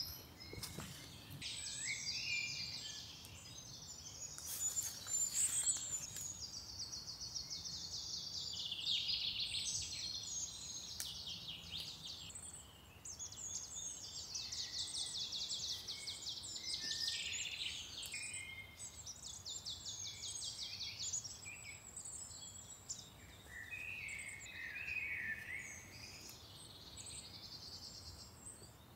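Songbirds singing: several overlapping rapid trills and chirps, one after another, over a faint steady background.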